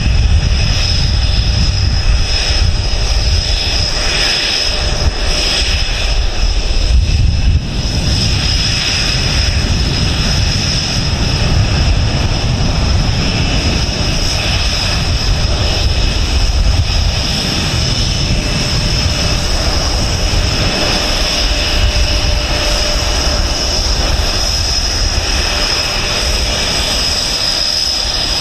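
Panavia Tornado jet flying past, its twin RB199 turbofans making a loud, continuous deep rumble with a steady high whine over it; the loudness drops a little about seven seconds in.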